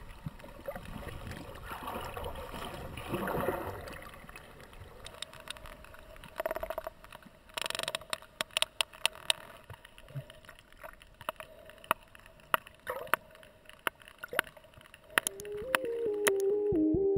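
Underwater sound around sperm whales: water noise for the first few seconds, then sharp clicks, some scattered and some in quick runs, typical of sperm whale echolocation. A few seconds before the end, synth music comes in and is the loudest thing.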